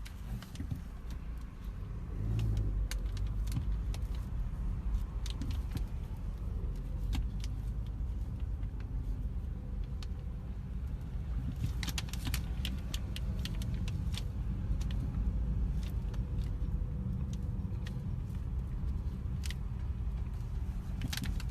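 Steady low rumble of a car in motion, with scattered clicks and light rattles, bunched about halfway through and again near the end.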